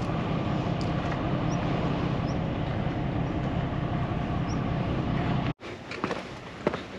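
Steady low rumble of wind on the microphone, with a few faint high chirps. After a sudden cut about five and a half seconds in, footsteps on stone steps begin.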